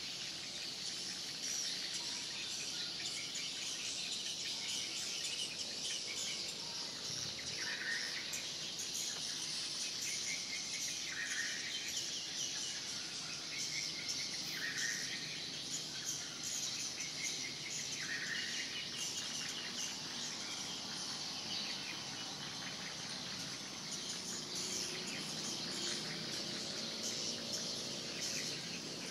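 Swiftlet lure sound: a recording of swiftlet chirping and twittering played from a swiftlet house's speakers to draw the birds in. A dense high chatter, with a lower chirp repeating about every three and a half seconds through the middle.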